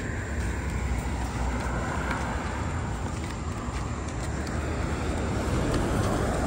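A car on the road: a steady rumble of engine and tyres that grows a little louder near the end.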